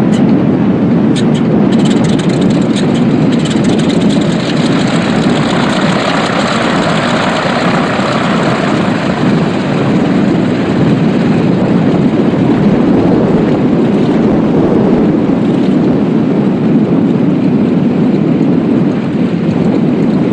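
Grumman G-164 Ag Cat seaplane's radial engine and propeller running loud and steady.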